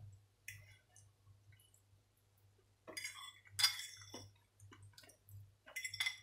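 Metal fork clinking and scraping against a ceramic dinner plate while scooping up mash and sauce, a handful of separate short clinks, under a steady low hum.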